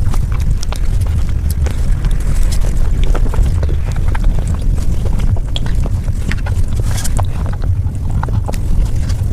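Close-miked eating sounds sped up five times: a dense scatter of quick wet mouth clicks and smacks from chewing mango dessert, over a steady low rumble.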